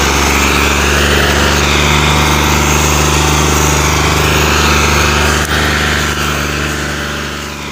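Tractor's diesel engine running hard under heavy load while hauling an overloaded sugarcane trolley, a steady drone that fades out near the end.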